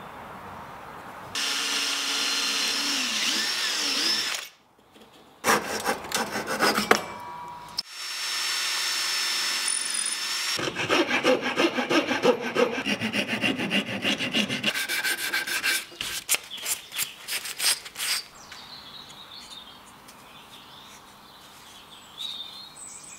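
A wooden block being cut and shaped with tools: short passages that change between a steady tool sound and rapid back-and-forth sawing strokes through wood, with quieter scraping near the end.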